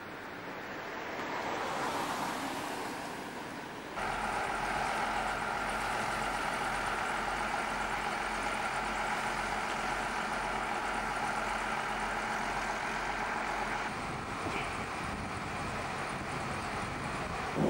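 A road vehicle passes, swelling and fading over the first few seconds. Then, after a sudden cut, a Queensland Rail 2000 class diesel railmotor idles with a steady hum.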